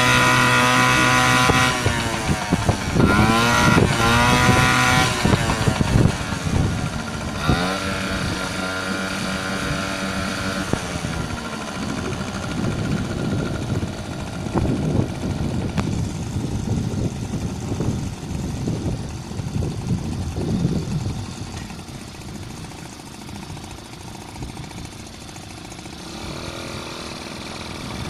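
HDX T2.5 two-stroke outboard motor fitted with a moped carburettor, revved up and dropped back three times, then running roughly at lower speed and settling quieter, picking up again near the end.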